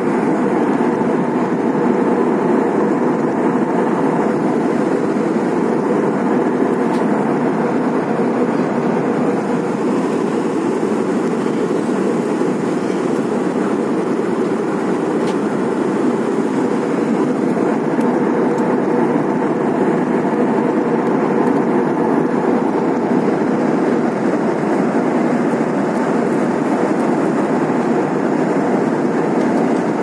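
Airliner cabin noise in cruise flight: the steady drone of jet engines and rushing airflow heard from a window seat, even and unchanging throughout.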